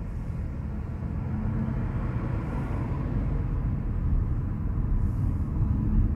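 Car cabin noise while driving: a steady low road and tyre rumble that grows slightly louder toward the end.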